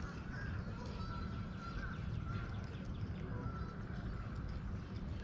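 Birds chirping with short, repeated high whistles over a low, steady rumble of outdoor wind.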